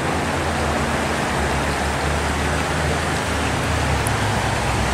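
Shallow creek water running over rocks, a steady rushing hiss with a low rumble underneath.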